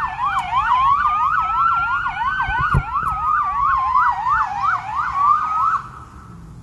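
Emergency vehicle sirens sounding together. A rapid yelp warbles about four times a second over a slower wail that rises and falls. Both cut off suddenly near the end.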